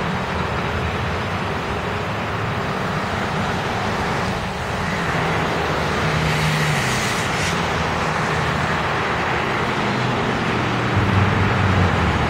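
Steady road traffic: cars passing with continuous tyre and engine noise. A heavier, lower engine drone grows louder near the end.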